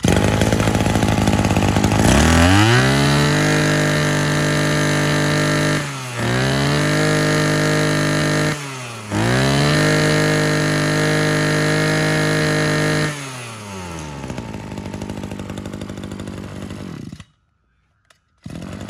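Maruyama BC20 two-stroke brush cutter engine revved up three times, each time held at high revs for a few seconds before dropping back. It then settles to idle and cuts off suddenly near the end, with engine sound starting again about a second later.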